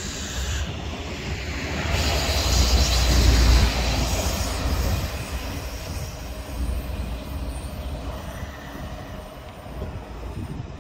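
A train running past on the tracks, its rumble and wheel-on-rail hiss swelling to their loudest about three seconds in and then slowly fading away.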